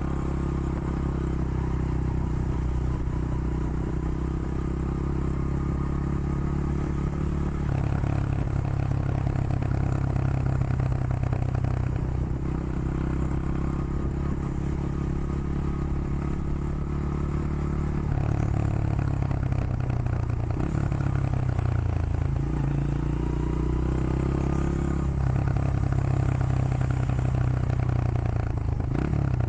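Honda XR100 Motard's small single-cylinder four-stroke engine running under way. The engine note holds steady for stretches and changes pitch several times, with a dip and rise about two-thirds of the way through, as the rider works the throttle and gears.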